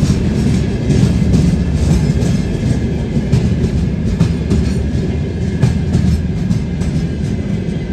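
Freight train of open gondola wagons rolling slowly past: a steady low rumble of wheels on rails with irregular clacks and knocks as the wheels cross rail joints.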